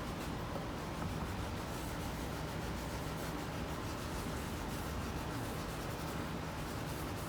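Steady rubbing against a wooden surface, a continuous scuffing with faint irregular strokes.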